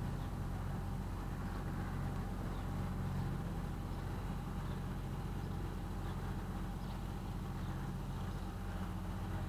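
A small motor cruiser's engine running steadily at low canal cruising speed, a constant low hum that does not rise or fall.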